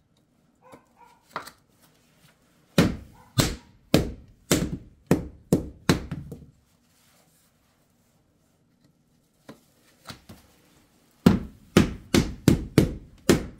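White rubber mallet tapping a new wooden floor plank down into fresh adhesive to seat it: a run of about seven thuds at roughly two a second, then after a pause a second, quicker run near the end.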